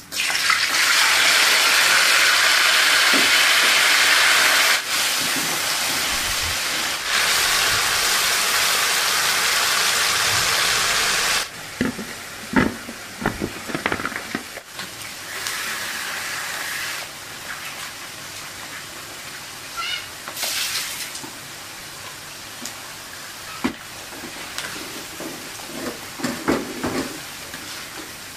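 Sliced jengkol dropped into hot oil in a wok, the oil sizzling loudly at once. The loud sizzle cuts off abruptly twice, at about five and eleven seconds in. After that the frying goes on much quieter, with scattered clinks and knocks of utensils.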